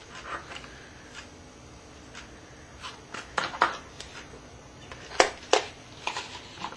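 A few sharp plastic clicks and knocks from handling a plastic wall clock: the hands are pressed onto the centre spindle and the frame is knocked on the wooden table, the loudest pair about five seconds in.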